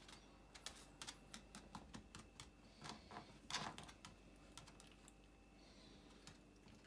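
Russian toy terrier's claws clicking and tapping on a laminate floor as it moves about: a faint, irregular run of light clicks that dies away after about five seconds.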